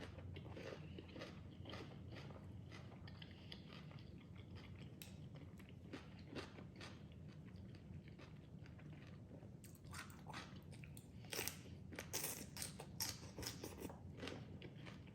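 A person biting and chewing crunchy raw vegetables with a spicy salad, close to the microphone: soft chewing at first, then a cluster of louder crisp crunches about two-thirds of the way in.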